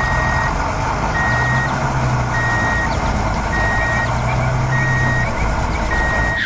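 Vehicle reversing alarm beeping six times at one steady pitch, about one beep a second, over a running engine.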